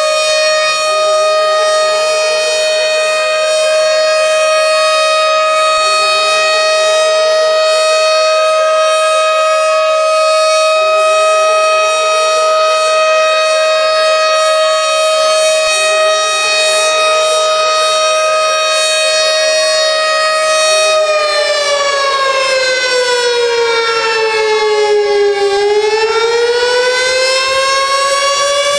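Tornado warning siren sounding a loud, steady high tone. About two-thirds of the way in, its pitch falls for a few seconds and then climbs back up. Underneath, a fainter rising wail repeats about every five seconds.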